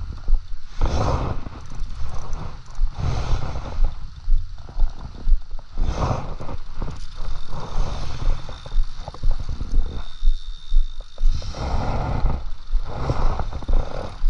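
Rumbling and rustling noise on a body-worn camera's microphone, in irregular surges every second or two, as the angler's clothing and hands move while he winds in a spinning reel.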